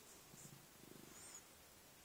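A domestic cat purring faintly, in stretches of about half a second, while it is being scratched on the head and neck.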